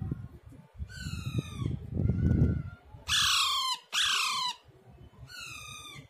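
A young parakeet giving four harsh squawks, each falling in pitch: one about a second in, two loud ones at about three and four seconds, and a fainter one near the end. A low rumble sounds through the first two and a half seconds.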